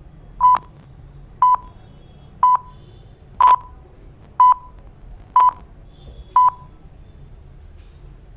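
Electronic beep sound effect: seven short, identical beeps at one steady pitch, about one per second.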